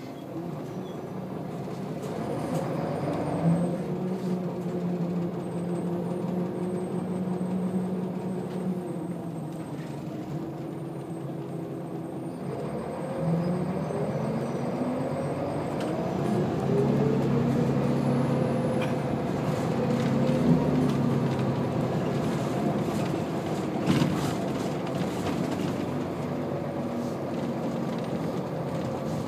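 Scania L94UB bus diesel engine heard from inside the passenger saloon, pulling and accelerating, its pitch climbing, holding and dropping back several times as the ZF automatic gearbox changes gear. Road rumble throughout, with a few sharp knocks and rattles from the body.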